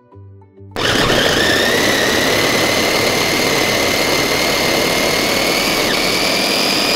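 Glen SA4043 Turbo electric mini chopper's 200 W motor switched on about a second in, spinning the twin blade through a quartered tomato. It runs steadily and loudly with a high whine that climbs slightly in pitch as the tomato is puréed.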